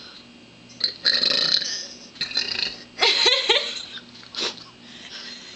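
A woman burping on purpose, a run of several short belches. The longest comes about a second in, a couple more follow around two to three and a half seconds, and a brief one comes near four and a half seconds.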